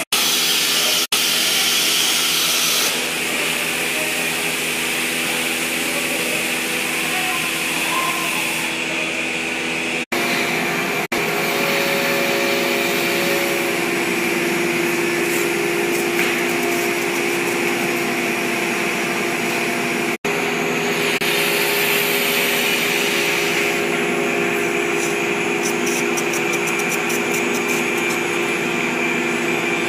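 Woodworking CNC router running, a steady whirring machine noise with a hum of several held tones. It breaks off in brief silent gaps about a second in, at about ten seconds and at about twenty seconds. Near the end a fast run of high ticks rises over it.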